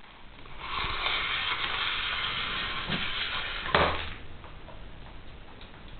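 A ferret drags a plastic ring-shaped ball-track toy across a wooden floor, making a steady scraping hiss for about three seconds that ends in one sharp knock; a few faint ticks follow.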